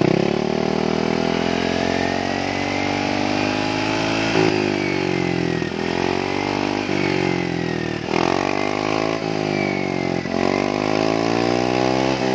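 Yamaha XMAX 250 scooter's single-cylinder engine revved through its original muffler, which has been hollowed out for a racing sound. The revs climb slowly for about four seconds, then the throttle is blipped repeatedly, the pitch rising and dropping sharply about once a second.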